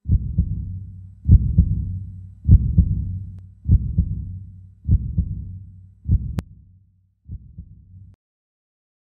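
Heartbeat sound effect: deep double thumps, lub-dub, repeating about every 1.2 seconds, each pair trailing off in a low rumble. The last beat is quieter, and the beating stops about eight seconds in.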